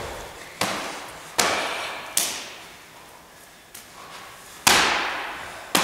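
Hand strikes slapping against a karateka's body and gi to test her tension in Sanchin stance: five sharp slaps with a longer gap in the middle, each echoing around a large hall.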